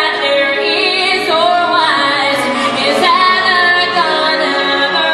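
A woman sings show-tune style over a full orchestral backing, holding long notes with a wavering vibrato.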